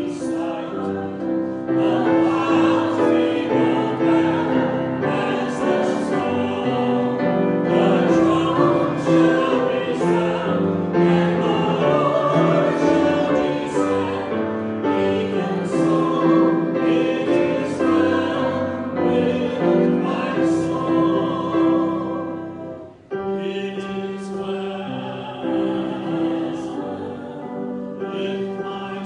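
Choir singing a song with instrumental accompaniment, with sustained sung notes; the music dips briefly about three-quarters of the way through and then carries on.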